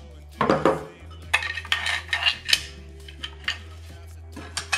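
Hard plastic and metal parts of an airsoft rifle clicking and clattering as they are handled and fitted together. There is a burst about half a second in, a run of knocks in the second and third seconds, and one more knock near the end.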